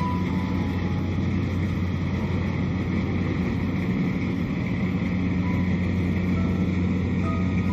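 Kubota DC-70 combine harvester's diesel engine running steadily at working speed with a low, even drone over a broad mechanical noise while harvesting rice.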